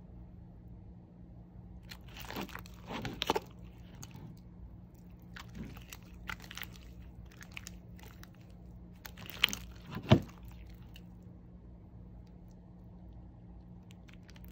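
Very wet, sticky, oozy slime (clear glitter slime soaked with water gel) being stretched and squeezed by hand, giving irregular squelches and small wet pops in clusters; the sharpest pops come about ten seconds in, and it goes quieter after that. A faint steady hum lies underneath.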